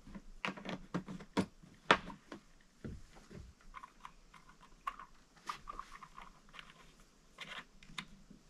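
Handling noises: scattered clicks, taps and knocks of plastic containers and a new chainsaw being handled on a wooden table. The loudest knocks come about one and a half and two seconds in, followed by lighter ticking.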